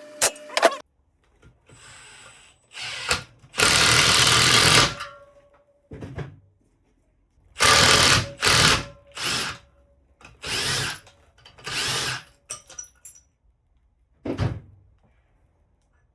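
A power tool run in short bursts during valve spring installation on a cylinder head: one longer burst of about a second, then several shorter ones.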